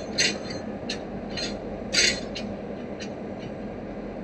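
Diesel freight locomotive idling steadily while coupled up to its wagons, with several short high hisses in the first half.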